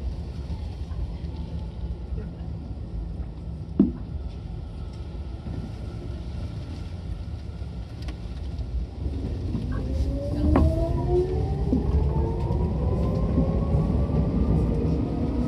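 Tokyu 8500 series electric train running: a steady low rumble, then from about two-thirds of the way in its traction motors and gears whine in several tones rising together in pitch as the train accelerates, growing louder. A single sharp knock sounds about 4 seconds in.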